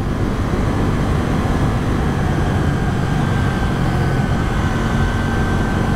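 KTM 790 Duke's 799 cc parallel-twin engine running at a steady pace on the move, with wind noise over it.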